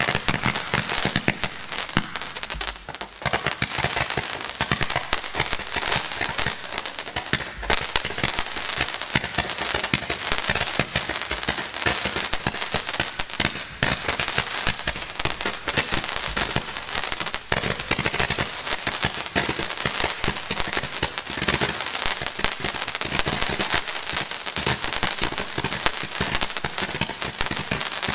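Fireworks being fired in quick succession: a dense, unbroken run of sharp pops, bangs and crackling, with a short lull about three seconds in.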